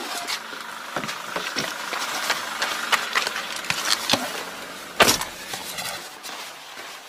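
Scattered clicks, rattles and rustling of someone moving about in and around a car, with a single loud thump of a car door shutting about five seconds in.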